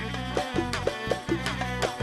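Instrumental break of an Arabic song, with no singing: a fast, steady percussion beat under sustained melody and bass lines.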